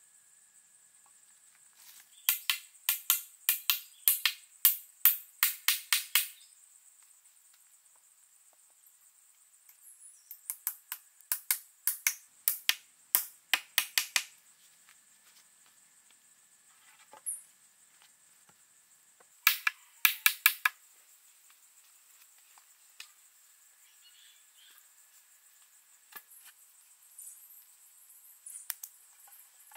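Sharp strikes of a hand tool, about three a second, in three runs: about a dozen, then another dozen, then four.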